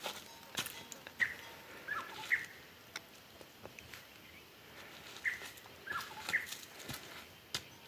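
Short bird calls, each a brief call that bends down in pitch, coming in two small clusters, with scattered light clicks and taps in between.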